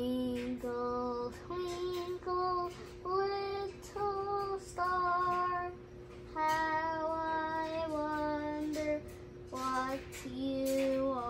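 A child's voice singing a slow, wordless lullaby-like melody of long held notes with short breaks between them, over a faint steady tone.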